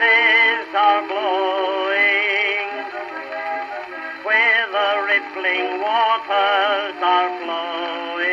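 Background music: an old-time recording of a popular song, with sustained notes wavering in a strong vibrato. The sound is thin, with no bass at all.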